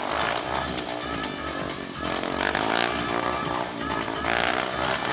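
Yamaha FZ motorcycle's single-cylinder engine revving up and down repeatedly, held on the throttle through a wheelie.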